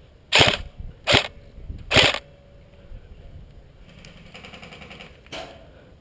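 Airsoft electric guns firing: three loud short bursts in the first two seconds, then a fainter rapid rattle of more distant automatic fire about four seconds in, and one more short burst near the end.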